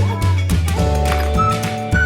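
Background music: upbeat instrumental with a steady bass and held chords, and a high melody line that comes in near the end.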